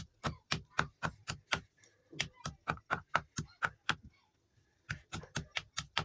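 Brittle chalk-like sticks (slate pencils or chalk) being crushed in quick, crisp crunches, about three a second. The crunching pauses for about half a second roughly four seconds in, then carries on.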